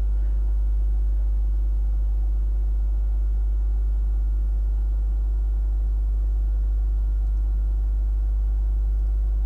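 Steady low electrical hum that does not change, with fainter overtones above it.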